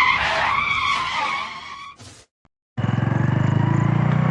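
Motorbike tyres skidding for about two seconds, ending in a short sharp burst. After a brief dropout, an engine runs steadily.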